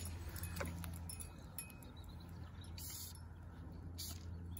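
Quiet handling noise from fly-fishing tackle: a few light clicks and two short hissing rustles, over a steady low hum.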